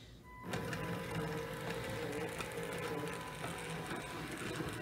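Small electric motor and gearing of a 3D-printed O gauge model locomotive whirring as it runs in reverse on plastic track, starting up about half a second in and then running steadily, with occasional faint clicks.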